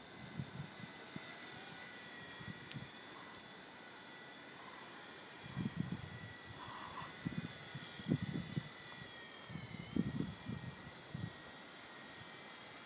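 V911 fixed-pitch RC helicopter in flight: its small electric motor whines on a thin pitch that wavers and dips as the throttle changes. Over it is a loud high hiss that swells and fades about once a second, and wind gusts on the microphone.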